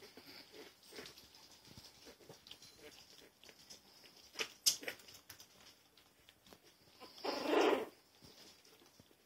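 Shih Poo mother dog licking and nuzzling her newborn puppies: soft wet licks and small clicks, with one louder, noisy sound lasting under a second near the end.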